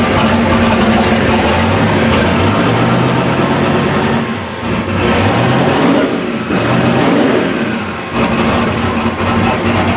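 Turbocharged LS V8 running on methanol, revved up several times, with brief dips between the revs.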